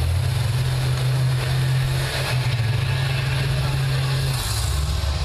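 School bus engines running in a demolition derby, a loud, steady low drone whose pitch drops about four and a half seconds in.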